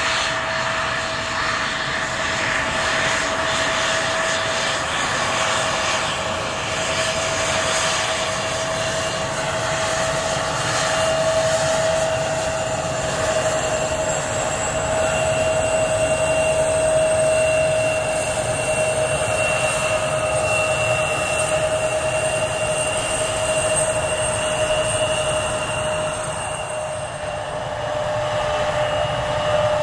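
Embraer regional jet's turbofan engines running at taxi power: a steady rush of engine noise with a high, held whine. It swells a little around the middle and eases near the end.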